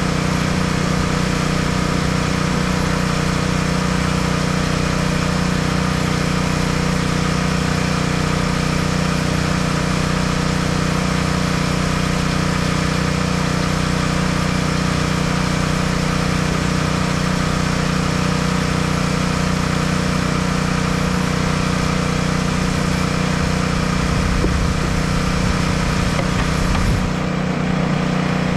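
An engine running steadily at one constant speed, an even, unchanging hum.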